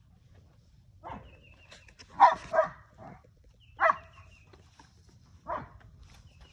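A dog barking five times at irregular intervals, two of the barks close together about two seconds in.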